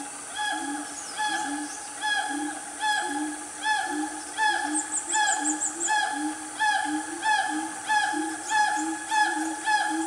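Siamangs calling in chorus: short pitched whooping notes repeated about twice a second, growing louder. A quick run of six high chirps sounds about halfway through.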